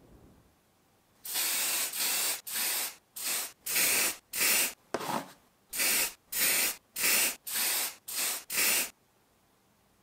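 Aerosol spray paint can sprayed in about fourteen short bursts of hiss, each around half a second long, starting about a second in and stopping shortly before the end.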